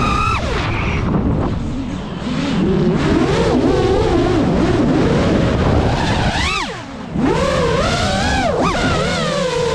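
Five-inch FPV quadcopter's motors whining, the pitch rising and falling with the throttle, with a sharp rise and steep drop about six and a half seconds in and again near nine seconds. A steady low rushing noise runs underneath.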